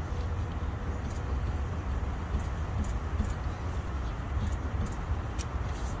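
Steady low rumbling background noise with a few faint scattered clicks.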